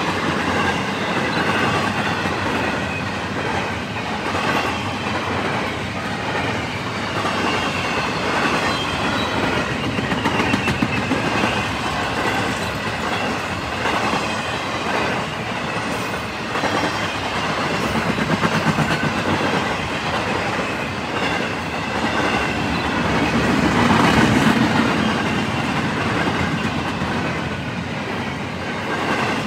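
Intermodal freight train cars rolling past: a steady rumble of steel wheels on rail with a running clickety-clack of wheels over rail joints, swelling and easing slightly as the cars go by.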